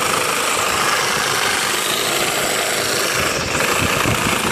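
A Ryobi P516 18-volt cordless reciprocating saw runs continuously, its blade cutting through a wooden deck post. The owner finds the saw really weak in the cut.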